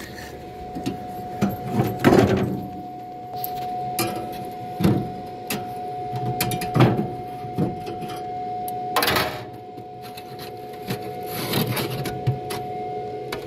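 Weber SmokeFire EX6 pellet grill running with a steady mechanical hum, with irregular knocks and rattles, the largest about nine seconds in. The fire has choked out in the flame pot while the grill keeps feeding pellets.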